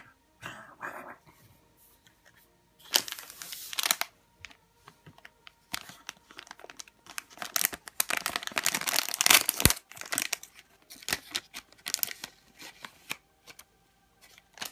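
Foil blind-bag packet torn open by hand, its wrapper crinkling in several ragged bursts of tearing and crackling, the longest from about six to ten seconds in.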